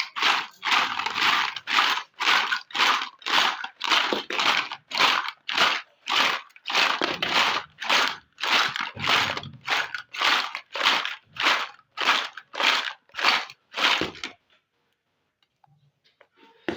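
An even, rapid series of crunchy crinkling strokes, nearly two a second, like crumpled plastic or packaging, stopping abruptly about fourteen seconds in.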